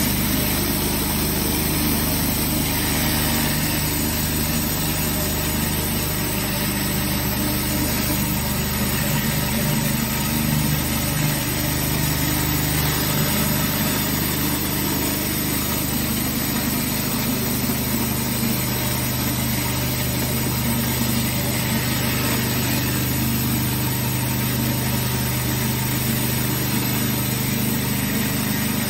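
Pressure washer running steadily, with an engine hum under the hiss of water jets from a rotary surface cleaner working over concrete.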